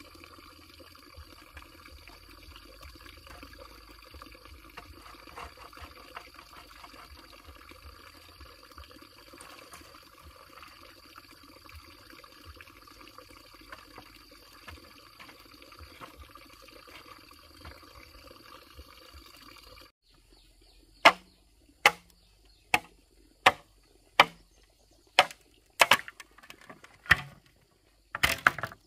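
A steady outdoor background with faint insect chirring. About two-thirds of the way through it gives way to a string of about ten sharp knocks, roughly one every second, from a hand tool striking at the base of an upright bamboo pole. The last knocks come closer together.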